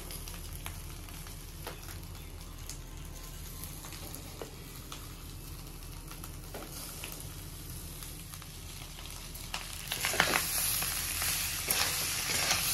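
Boiled potatoes and spices frying in mustard oil in a metal kadai, a steady sizzle with scattered light clicks. From about ten seconds in the sizzle grows louder, with the knocks and scrapes of a spatula stirring the pan.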